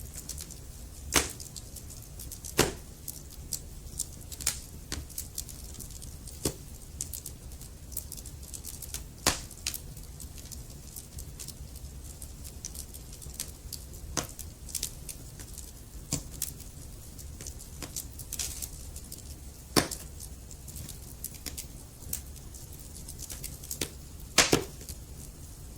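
Wood fire burning in a fireplace: irregular sharp crackles and pops from the burning logs over a low steady rumble of flame, with a few louder pops, the loudest near the end.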